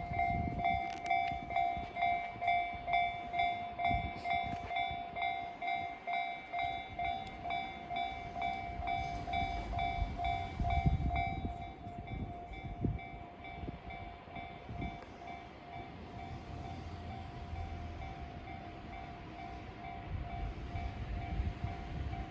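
Japanese level-crossing warning bell ringing in a rapid, even repeating ding, loud at first and fainter after about twelve seconds, while a freight train passes with a steady low rumble of wheels on rails.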